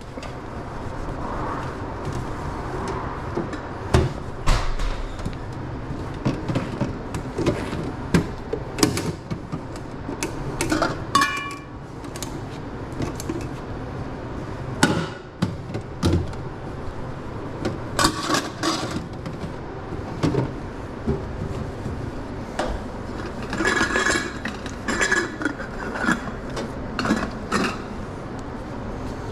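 Stainless-steel hot dog cart being wiped down and handled: irregular clanks and taps of metal lids and tongs, with one brief metallic ring about eleven seconds in, over steady background noise.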